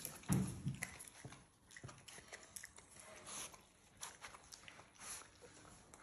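A raccoon moving and eating on a stone kitchen countertop: scattered small clicks and taps, with a dull thump just after the start.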